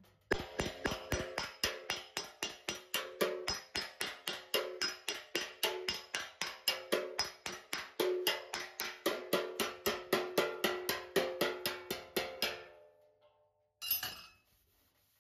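Steel slapper striking the steel wing panel of a Classic Mini in a fast, even run of blows, about four or five a second, each with a short metallic ring from the panel. This is the planishing stage of a dent repair, smoothing the worked area level. The blows stop a little before the end, followed by one brief knock.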